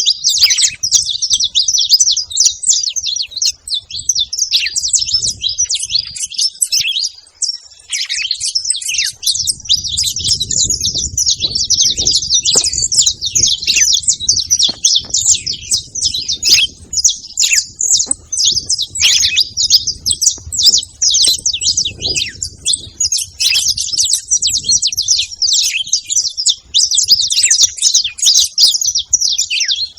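Several saffron finches chirping and twittering together in a dense, continuous, overlapping chorus of high, quick notes.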